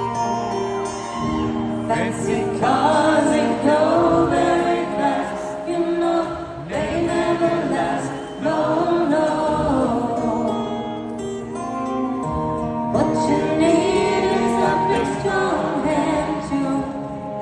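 Live song: a female singer accompanying herself on acoustic guitar, with a large crowd singing along.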